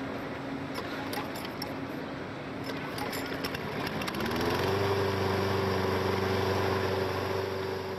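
Walk-behind lawn mower's small petrol engine running. About four seconds in, its pitch rises and settles into a louder, steady hum.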